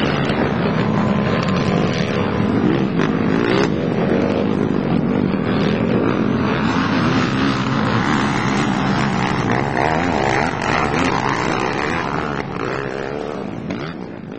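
Several ATV engines racing at once, their pitches rising and falling as the riders work the throttle. The sound fades down near the end.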